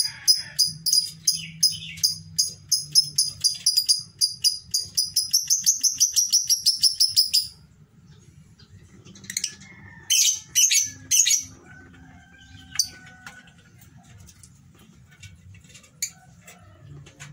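Lovebird chirping: a fast, steady run of short shrill chirps, several a second, that stops about seven seconds in. A few louder calls follow a couple of seconds later, then only scattered single chirps.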